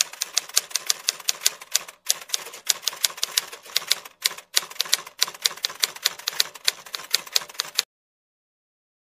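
Typing sound effect: rapid key clicks that keep pace with the on-screen text, with two brief pauses about two and four seconds in, stopping a little before the end.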